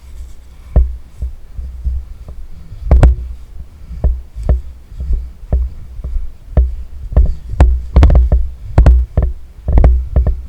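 Irregular thuds and sharp knocks over a heavy low rumble, growing busier after about seven seconds: movement and handling noise on a body-worn camera while the player moves.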